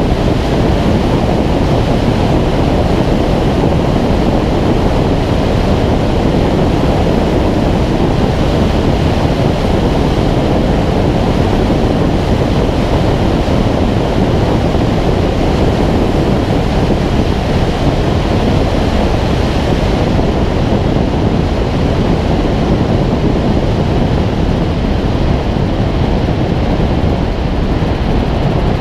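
Steady rushing wind noise on a wing-mounted camera as an engineless Schweizer 2-33 glider flies low on landing; the hiss thins a little in the last several seconds as it slows.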